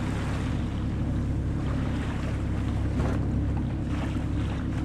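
Sailing yacht's inboard engine running at tick over while under way: a steady low drone, with wind noise on the microphone and the sea washing past.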